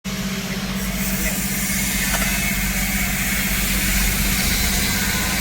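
Mahindra Marazzo's diesel engine running with a fast, even tak-tak-tak knock. The knock comes with the fault in which the revs race on light throttle and the engine knocks.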